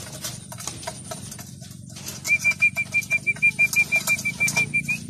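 Pigeons pecking grain from a metal feeding trough: a scatter of quick, sharp taps. About two seconds in, a loud, rapid run of short high beeps at one steady pitch starts, about six a second, and lasts some two and a half seconds.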